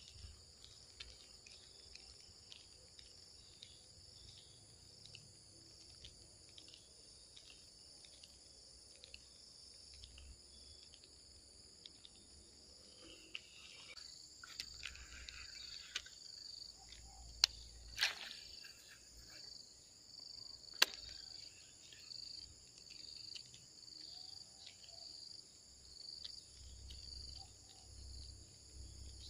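A faint, steady, high-pitched insect chorus. From about halfway through, one insect call pulses about once a second. A few sharp clicks come around two-thirds of the way in.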